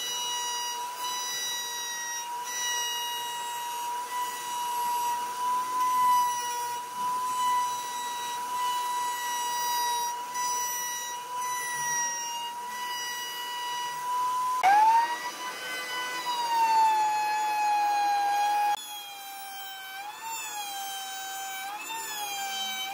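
Table-mounted router spinning a bearing-guided bit, cutting the edge of a wooden ring, with a steady high whine. About two-thirds of the way through, the whine sweeps sharply up and then sags. Near the end it wavers up and down about once a second.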